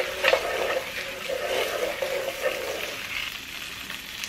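A steak sizzling in an electric pan, with a wooden spatula scraping and turning it in the first couple of seconds before the frying hiss continues alone.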